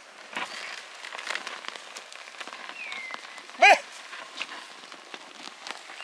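Soil crackling and crunching as an ox-drawn wooden plough turns the earth and hooves and feet tread it. About two-thirds of the way through comes a brief loud shout, the loudest sound, and twice a thin falling whistled note is heard.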